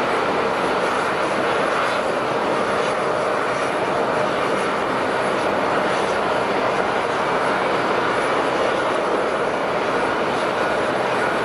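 Jet airliner engines running: a steady, even rushing noise that neither rises nor falls.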